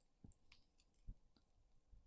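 Near silence with a few faint, short clicks scattered through it.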